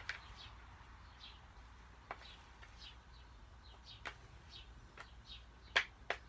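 Spoon knocking and scraping against a plastic bowl now and then while stirring cornstarch and lotion dough, a few sharp clicks, two close together near the end. Faint short high chirps come between the clicks.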